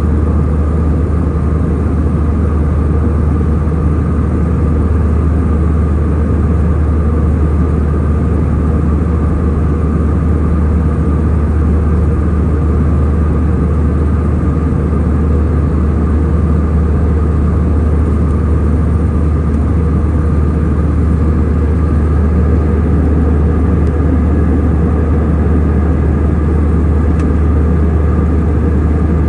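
Airliner cabin noise in flight: a loud, steady drone of engines and rushing air with a deep hum underneath, unchanging throughout.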